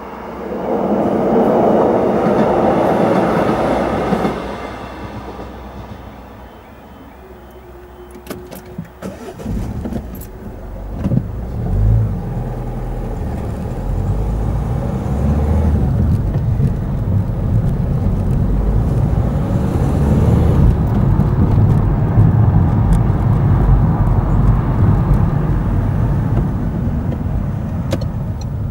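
A loud pitched drone for the first few seconds fades away. About ten seconds in a car engine starts with a few knocks, and the car then drives off, its engine and road noise running steadily.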